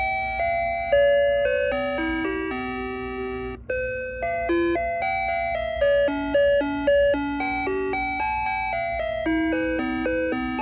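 Christmas motionette toy's built-in music chip playing a Christmas tune in square-wave tones: a simple electronic melody of short and held notes, each note fading slightly after it starts.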